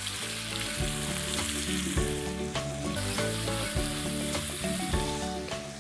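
Raw chicken thigh pieces sizzling in hot olive oil and butter in a frying pan on full heat, stirred with a wooden spoon, with a few light knocks of the spoon.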